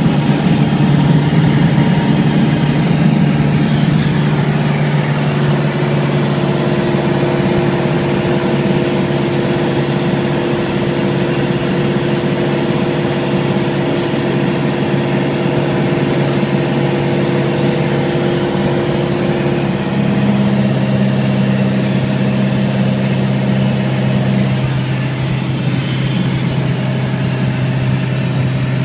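Piston engine and propeller of a single-engine light aircraft in cruise, heard inside the cabin as a loud, steady drone. Its tone changes slightly about twenty seconds in.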